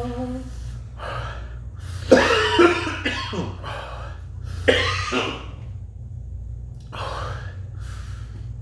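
A man coughing hard several times into a napkin, with rough breaths between, from the burn of a very hot chili sauce; the loudest coughs come about two seconds in and near the middle.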